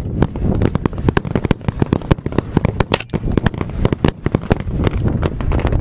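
Rapid, sustained gunfire: many sharp shots a second, irregularly spaced and of varying loudness, with no pause.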